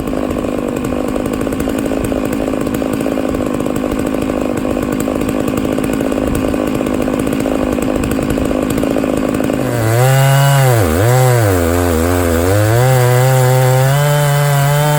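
Stihl MS660 two-stroke chainsaw with a 64-inch ripping bar, running at full throttle and ripping lengthwise through a log in a chainsaw mill. About ten seconds in, the chain breaks out of the cut and the engine rises to free revs. The revs dip twice, then hold high.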